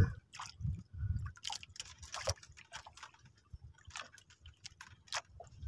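Faint water sloshing and dripping around a small wooden outrigger boat, with scattered light clicks and taps.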